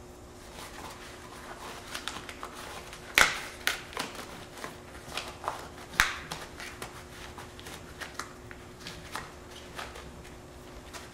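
Yellow rubber gloves being pulled on over the hands: irregular rubbery rustling and stretching, with two sharp snaps about three seconds and six seconds in.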